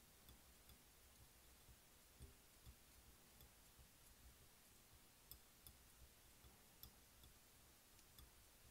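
Near silence with faint, irregular light clicks from a metal fly-tying bobbin wrapping thread around a hook shank, the clearest ones past the middle.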